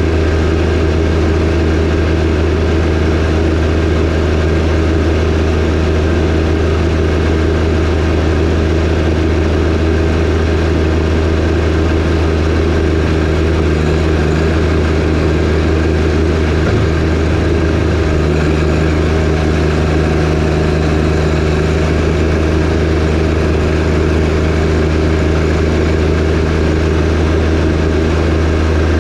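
John Deere 1025R compact tractor's three-cylinder diesel engine running at a steady, unchanging speed while snowblowing with its 47-inch front-mounted snowblower.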